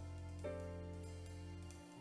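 Quiet background music of sustained chords. The chord changes about half a second in, and the music dips briefly near the end.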